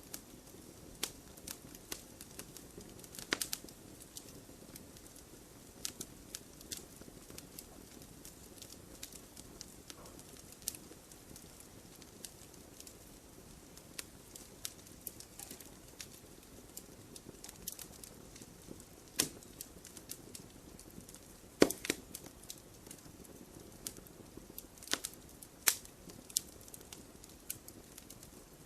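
Wood campfire crackling: irregular sharp pops and snaps of burning wood over a soft steady hiss of flames, with the loudest pop about three-quarters of the way through.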